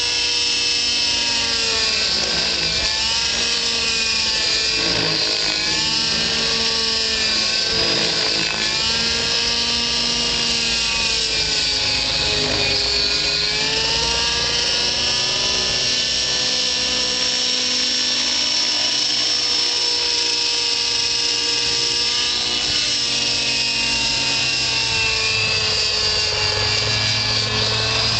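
JR Vibe 90 RC helicopter's nitro engine and rotor head running hard in 3D flight: a continuous high whine whose pitch dips and recovers again and again during tic-toc manoeuvres, then holds steadier in the second half.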